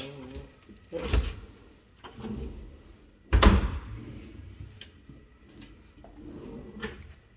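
A wide kitchen drawer on runners pulled open and pushed shut, giving sudden knocks about a second in and a louder thump about three and a half seconds in, with lighter knocks between.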